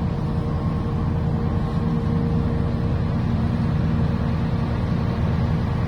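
Engine running steadily at an even speed: a low, constant hum with faint steady tones above it.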